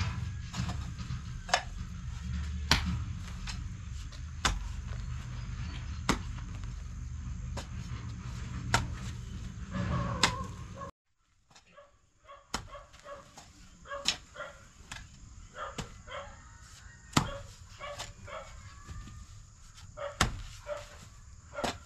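Sharp knocks at irregular intervals, about one every second or so. A low rumble runs under them in the first half and cuts off abruptly about halfway, and the knocks continue more faintly after.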